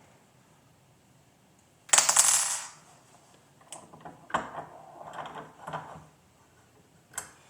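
A small metal part clattering and jingling on a hard work surface, loud and bright for under a second about two seconds in, followed by a few softer clicks and knocks of small parts being handled and a sharp click near the end.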